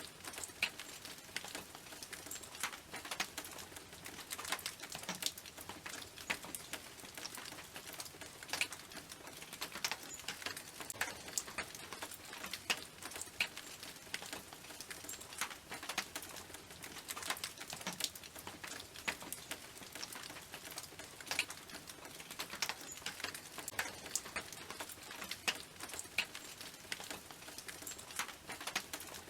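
Rain falling on a tin roof: a steady patter of many drops ticking irregularly on the metal.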